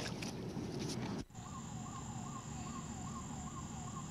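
A rushing noise for about a second, cut off suddenly. Then a siren yelping, its pitch rising and falling about three times a second.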